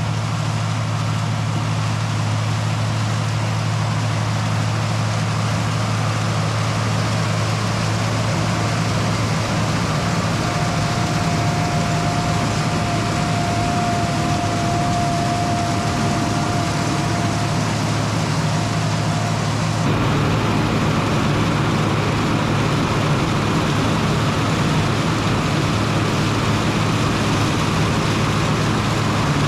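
Farm tractor engine running steadily. A thin high whine joins in for about seven seconds in the middle, and the sound shifts slightly about two-thirds of the way through.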